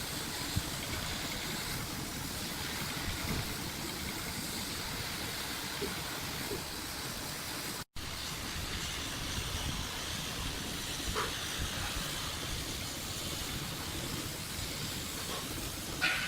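Steady hiss of background noise, cut off for an instant about eight seconds in, with a short knock near the end.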